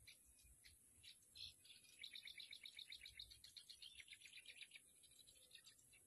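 Faint, rapid chirping trill of short high notes, about ten a second, from about two seconds in until near the end, with a few single chirps before it, over a steady high hiss.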